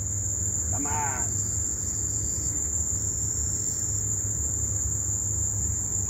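Steady high-pitched trill of insects, with a low rumble underneath and a brief curved call about a second in.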